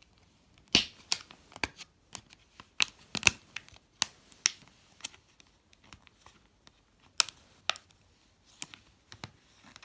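Retail packaging of a pair of long nose pliers being worked open by hand: an irregular series of sharp clicks and short rustles as the locking tab is undone one-handed.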